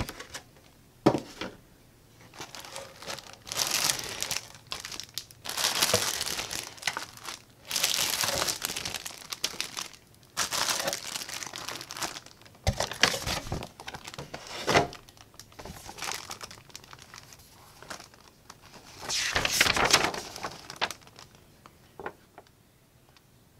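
Clear plastic bags wrapping model-kit parts sprues crinkling in irregular bursts as they are lifted out of the box and handled, with a few sharp clicks between them.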